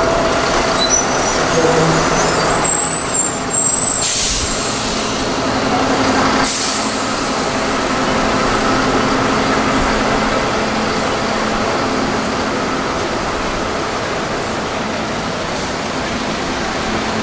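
City buses idling at the kerb with a steady diesel drone, and two short hisses of air-brake release about four and six and a half seconds in.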